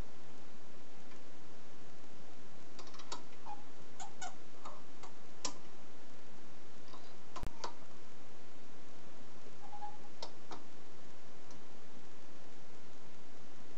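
Scattered small metallic clicks and taps as steel parts and spanners are handled on the end of a mini lathe spindle, with one sharp click about seven and a half seconds in, over a steady hiss.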